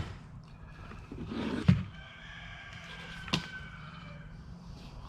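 Items being handled while a box is unpacked: a rustle ending in a knock about a second and a half in, then a single sharp click about three seconds in.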